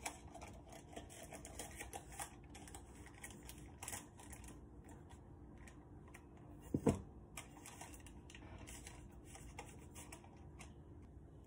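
Faint clicks and rustles of hands pressing a coiled bread dough into a small round metal baking tin, with one dull knock about seven seconds in.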